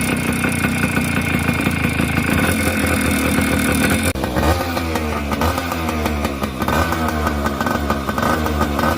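Suzuki Samurai motorcycle's two-stroke engine running steadily, then, after a sudden change about four seconds in, being revved up and down several times. The owner says its engine noise has become too loud.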